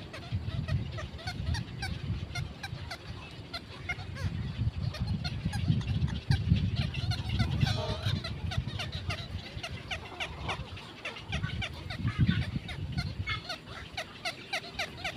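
Many birds calling at once in a constant chatter of short, quick notes. A low, uneven rumble runs underneath and swells around the middle.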